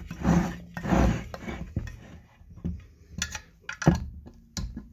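Hex key and locking pliers clinking and scraping on the metal of an Arctic Cat reverse-cam secondary clutch as its bolts are tightened by hand. Rough scraping in the first second or so, then several sharp metallic clicks from about three to four and a half seconds in.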